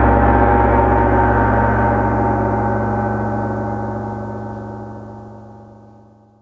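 Final chord of a rock band's instrumental ringing out, electric guitar and bass sustaining over a gong-like shimmer, and fading steadily away to silence at the very end.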